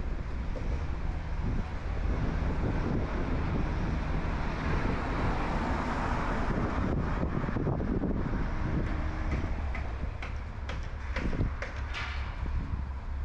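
A car driving past on the street, its road noise swelling to a peak about halfway through and then fading, over a steady low rumble of wind on the microphone.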